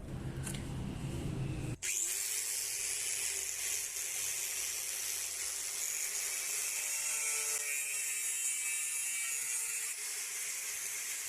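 A power tool running steadily against a workpiece, a continuous high hissing grind with a faint motor tone beneath; it starts abruptly about two seconds in, after a moment of light rubbing.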